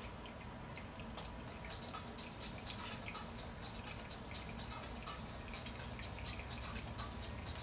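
Brewed coffee dripping from a Kalita Wave dripper into a glass server as the brew drains through: many small, irregular drips, several a second.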